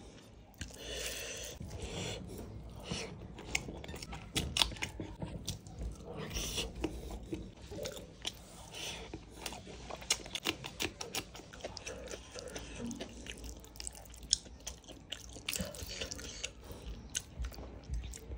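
Close-up chewing and biting of a mouthful of rice and fish curry eaten by hand, with many small wet clicks and smacks throughout.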